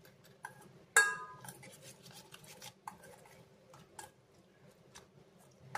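Steel spoon stirring and scraping a thick curd-and-spice marinade in a stainless steel bowl. There is a sharp ringing clink of spoon on bowl about a second in, then lighter clinks and scrapes.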